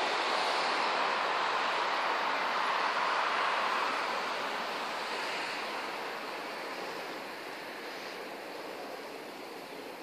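Steady rushing noise of street traffic, like tyres on the road, which fades away gradually from about four seconds in.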